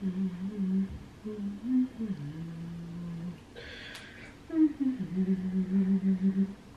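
A woman humming a tune in a low voice, moving between notes, with a run of short repeated notes near the end. A brief snip of scissors through hair about four seconds in.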